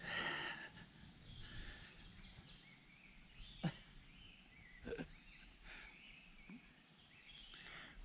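Quiet outdoor background in the woods, with two short sharp sounds about a second apart near the middle.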